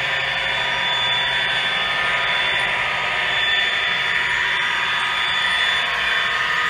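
HO scale model diesel locomotive running along the layout's track under DCC control: a steady mechanical whir with a thin high whine held throughout.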